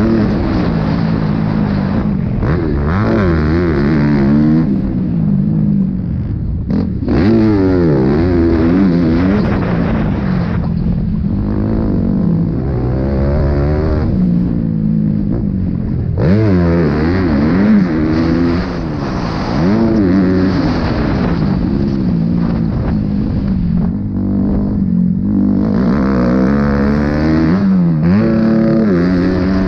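Motocross bike engine revving hard and falling back over and over as the rider accelerates and backs off the throttle lap after lap, heard close from the bike's onboard camera.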